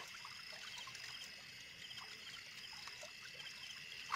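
Faint water trickling and light splashing as a fishing net holding fish is worked in shallow water, over a steady high-pitched chorus of night insects.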